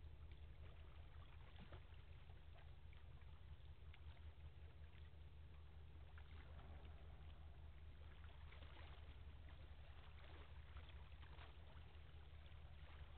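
Faint, steady low drone of a distant tugboat's engines across the water, with scattered faint ticks above it.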